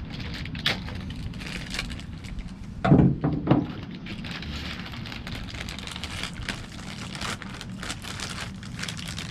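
Plastic wrapping crinkling and crackling as it is pulled off a new truck door handle, with a louder bout of handling noise about three seconds in.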